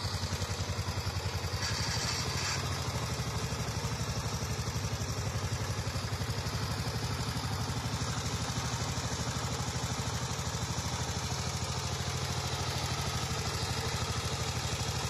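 Two-wheel power tiller's single-cylinder diesel engine chugging steadily with an even, rapid beat, working hard under load as the tiller is driven through deep mud.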